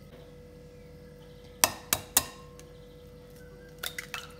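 Egg knocked against the rim of a glass bowl: three sharp clinks a little after midway, then a quick cluster of cracks near the end as the shell is broken open over the bowl. A faint steady hum runs underneath.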